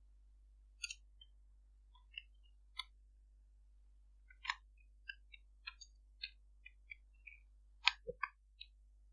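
Computer keyboard keys clicking in an irregular run of single keystrokes, about fifteen in all, as code is typed. The loudest keystrokes come near the end, one with a duller thud.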